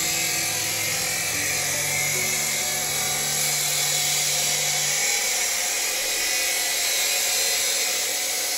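Abrasive cut-off saw (chop saw) grinding through steel tubing: a steady, harsh high-pitched grind, with a lower hum underneath that fades out about halfway through.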